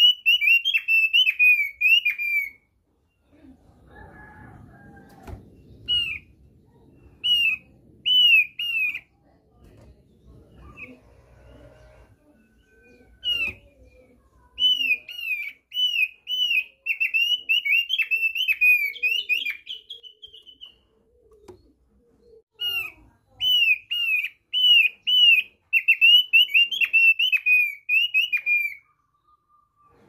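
Thick-billed white-eye (opior paruh tebal) singing: fast runs of high, down-slurred chirps in bursts of a few seconds, with short pauses between.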